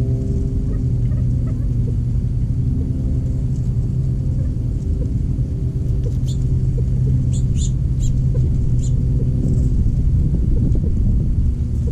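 Steady low rumble with a faint hum, with a few short high bird chirps about six to nine seconds in.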